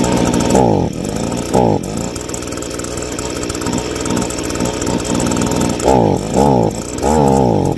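Stihl handheld leaf blower's two-stroke engine running during a carburetor low-speed adjustment, with a short rev that falls back twice near the start and three more near the end. It has been dying out at idle from running too lean.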